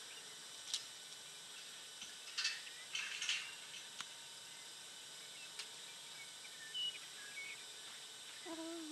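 Faint outdoor ambience: a steady low hiss with a few scattered faint chirps and several soft knocks and rustles, the loudest about two and a half and three seconds in.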